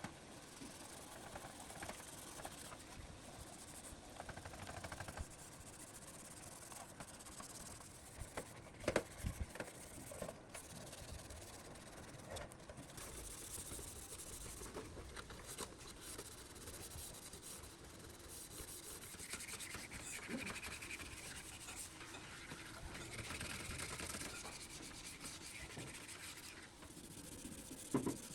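Hand work on a part: a steady scraping and rubbing noise, with a few sharp knocks about nine seconds in.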